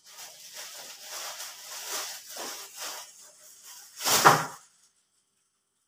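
Rustling and handling noises as glitter-paper leaves and a plastic glue bottle are worked over a cardboard cake board, with one louder sudden rustle-and-bump about four seconds in.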